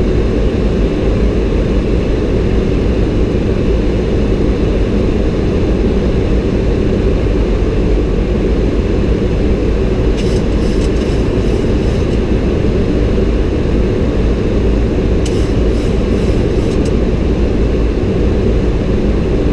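Steady rushing cockpit noise of a Boeing 737-800 in flight on approach: airflow and engine noise heard on the flight deck. Two brief runs of rapid faint ticks come about ten and fifteen seconds in.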